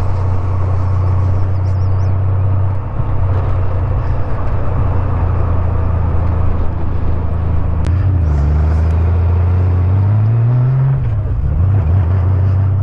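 1989 motorcycle's engine running steadily at road speed, heard through a helmet microphone; about eight seconds in the engine note drops as the throttle eases, then rises and falls back near the end, as with a gear change.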